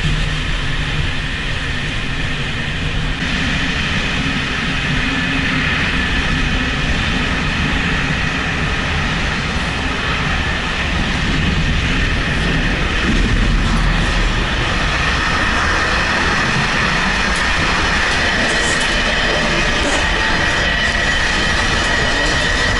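Running noise of a moving train heard from inside the carriage: a steady rumble, with a thin high whine that comes up in the second half.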